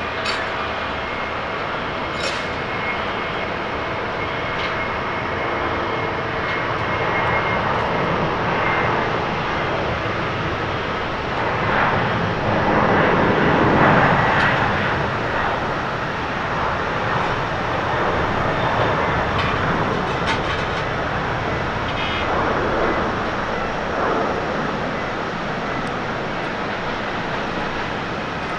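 Boeing 767-300ER's twin turbofan engines at takeoff power: a steady rushing jet noise that swells to its loudest about halfway through as the airliner rolls past and lifts off, then stays strong as it climbs away.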